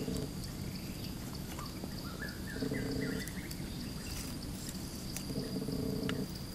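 Animal calls: a short low call at the start, then two longer low calls, each held for about a second, near the middle and near the end, with a few quick rising bird chirps between them. Scattered light clicks and a steady high-pitched tone run underneath.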